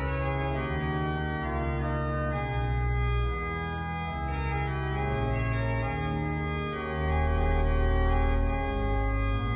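Pipe organ playing sustained chords over deep pedal notes, swelling louder about seven seconds in.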